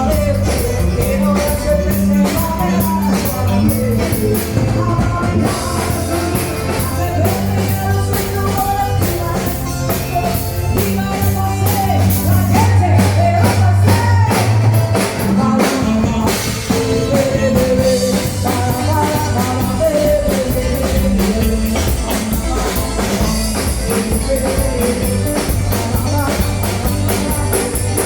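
Rock-style band music with a singer, drum kit and guitar over a heavy, steady bass.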